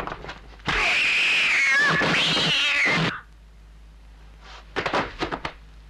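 Two long, screeching cat yowls, one after the other, each about a second, high and wavering before falling away. Near the end come a few sharp hits.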